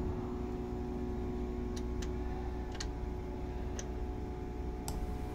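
A steady hum throughout, with five faint, sharp metallic clicks spread across the middle and end as a hand handles the nut and clamp connector on aluminium busbars.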